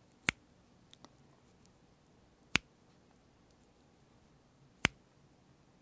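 Three sharp clicks about two seconds apart, made with a small handheld tool close to the microphone as the ASMR sound of an acne needle going in.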